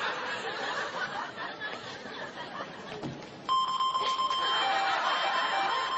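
Walk-through metal detector alarm going off suddenly about halfway through: a steady electronic tone with a lower beep pulsing on and off over it, with laughter around it.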